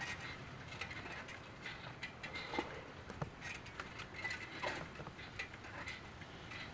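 Irregular light clicks and taps from footsteps and the handling of a handheld camera, over low outdoor background noise.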